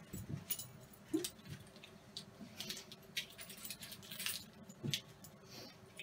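Faint handling noises: keys on a lanyard clinking and the wrapper of a candy bar crackling as it is opened, in scattered short clicks and rustles with a couple of brief squeaks.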